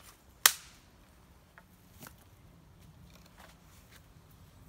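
Wooden sticks of a shelter's pole frame being handled: one sharp, loud wooden crack about half a second in, then a few faint clicks of wood on wood.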